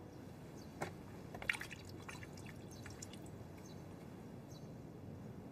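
Wine poured from a bottle into a small cup: faint dripping and splashing of liquid, with a few light clicks about one to two seconds in.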